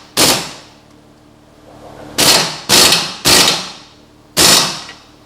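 Hammer blows on metal rear suspension parts: five sharp strikes, one at the start and four more after a pause of about two seconds, each ringing briefly.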